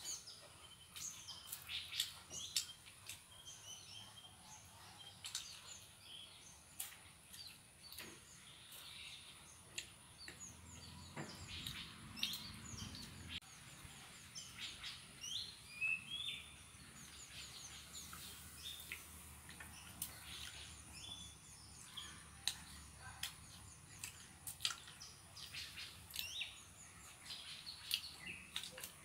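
Small birds chirping: many short, high, quick calls scattered throughout, over a faint steady high-pitched tone.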